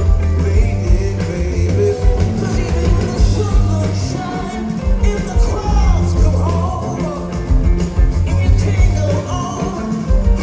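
Soul-rock band playing live, with a sung lead vocal over a steady heavy bass line, drums and guitar.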